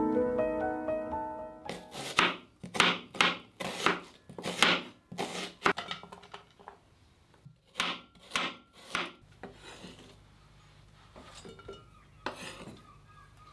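Kitchen knife slicing a half onion on a wooden cutting board: two runs of crisp cuts, about two a second, then a single cut near the end.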